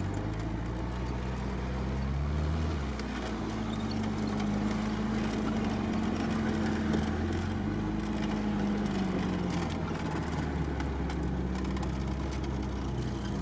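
Off-road vehicle's engine heard from inside its cab, running under load through mud. The revs climb about two seconds in, hold higher for several seconds, then drop back.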